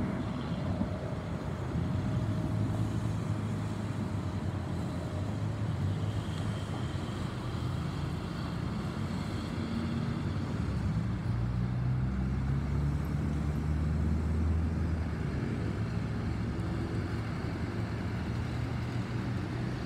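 Distant jet engine noise of an Airbus A320neo's CFM LEAP-1A turbofans as the airliner climbs away: a steady low rumble, with a faint tone that fades out about five seconds in.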